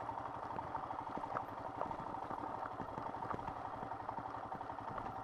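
Royal Enfield Himalayan's single-cylinder engine running steadily at low speed on a loose gravel track, with light clatter and rattles from the bike over the stones.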